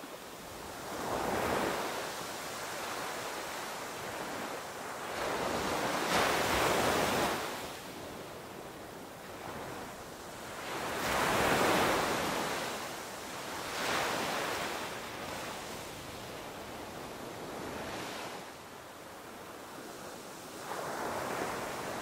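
Small surf breaking and washing up a sandy beach, a steady rush that swells every few seconds as each wave comes in.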